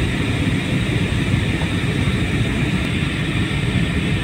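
Steady cabin noise of an airliner in flight: engine and airflow noise heard from inside the passenger cabin, a deep, even drone with a hiss over it.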